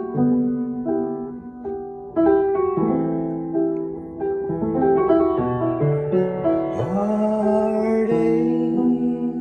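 Piano playing an instrumental passage of a song, held chords changing every second or so, with a low note sliding up and holding about seven seconds in.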